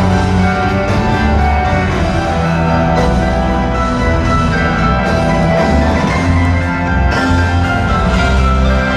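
A rock band playing live in an arena, loud and continuous: sustained chords over a steady heavy bass, with bright chiming keyboard or guitar notes on top.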